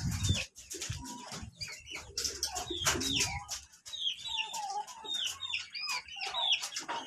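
Many short bird calls in quick succession, several a second, clucking and chirping. A low rumble lies under the first three seconds or so.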